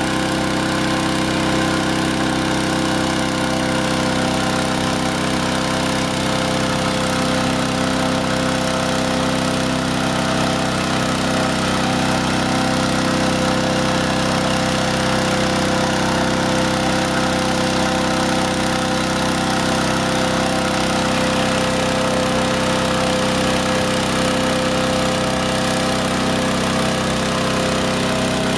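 Small engine-driven inflator fan running steadily at constant speed, blowing cold air into a hot-air balloon envelope during cold inflation.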